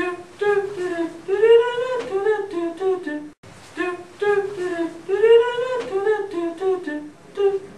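A voice humming a short tune of held, stepping notes, the same phrase twice with a brief break between.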